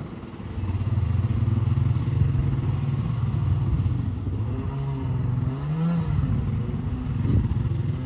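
Stand-up jet ski's engine pulling away as the rider gets up and rides off: a steady drone that gets louder about half a second in and rises in pitch briefly around five to six seconds in before settling.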